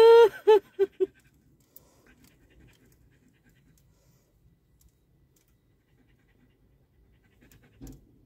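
A dog's whining cry: one drawn-out high note followed by three short, falling yelps, then only faint low rumble.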